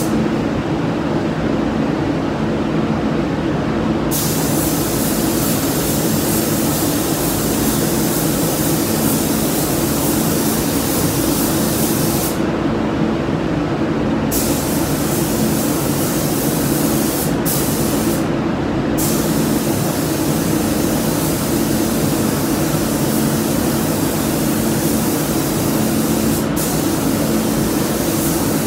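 Gravity-feed paint spray gun hissing as it sprays, cutting in and out as the trigger is pulled and released: silent for about the first four seconds, a pause of about two seconds near the middle and a few short breaks later. A steady low hum runs underneath.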